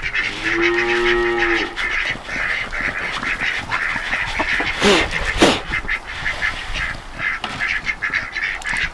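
A group of ducks quacking and chattering in quick, dense calls. One longer, steady-pitched call is held for over a second near the start, and a falling call comes about five seconds in.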